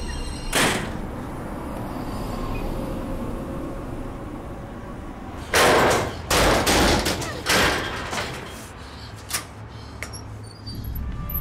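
Heavy banging on a door: one bang, then after a pause four more bangs in quick succession, over a low steady drone.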